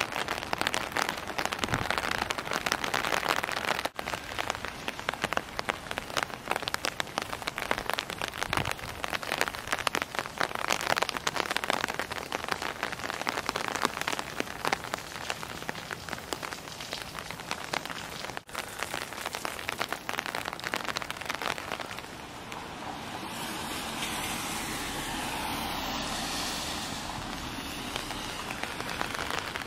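Steady rain pattering close to the microphone in a dense crackle, broken abruptly twice. In the last several seconds the patter gives way to a smoother, swelling hiss of car tyres on the wet road.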